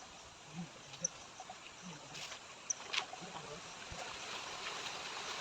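Outdoor forest ambience: a steady hiss with a couple of short high chirps, soft scattered low calls and a sharp click about three seconds in.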